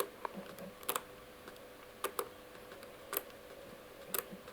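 Dial of a Lockwood combination padlock being turned by hand, giving soft sharp clicks about once a second as it is stepped from number to number. The shackle is left slack while the dial is felt for loose positions that give away the combination.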